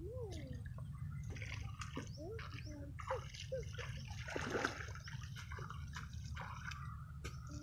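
Bare feet wading through shallow muddy water, splashing and sloshing with each step from about a second in.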